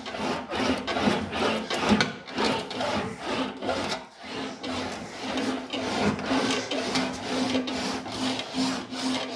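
Sheet-metal panel being rolled back and forth through an English wheel: a repeated rubbing, rasping sound as the wheels press and stretch the metal to raise a low area of the panel. There is a brief pause about four seconds in.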